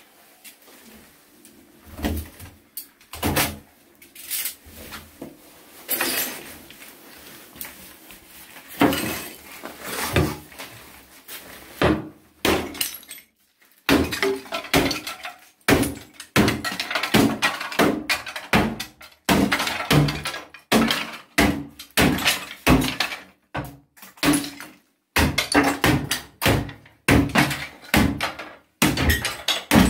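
Hammer smashing ceramic tiles on the wall and tiled surround of a bathtub: scattered blows at first, then from about halfway a steady run of strikes, about two a second.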